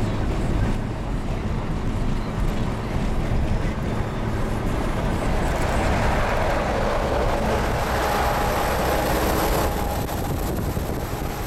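Steady rumble of road and wind noise while driving alongside a Renault Magnum semi-truck. A louder rushing noise from the truck builds from about halfway through as the car draws level with its chrome side exhaust, then drops off suddenly near the end.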